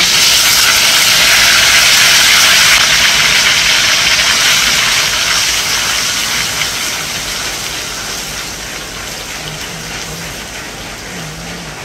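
Wet chili paste sizzling hard as it hits hot oil in a stainless-steel wok and is stirred with a wooden spatula. The sizzle is loudest at first and slowly dies down.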